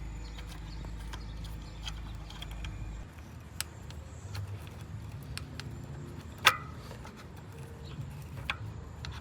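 Scattered metal clicks and taps from hand tools working a bolt loose on a motorcycle-style brake caliper, with one sharp click about two-thirds of the way through. A low rumble runs under the first three seconds.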